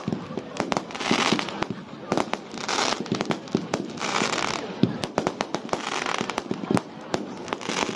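Fireworks display: aerial shells and ground fountains going off, many sharp bangs and crackles in quick succession, with short stretches of hiss between them.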